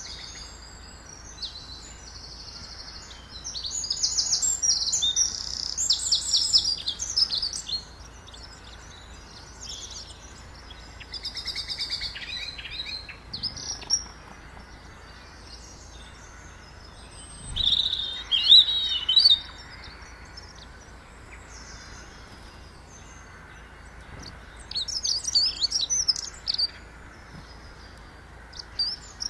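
Small songbirds chirping and trilling in several high-pitched bursts, with quieter gaps between them; the loudest is a quick warbling phrase a little past the middle.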